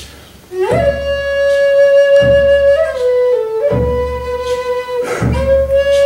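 Native American flute playing a slow melody of long held notes. A brief gap comes about half a second in, then a long note that steps down around the middle, with a deep pulse about every second and a half beneath it.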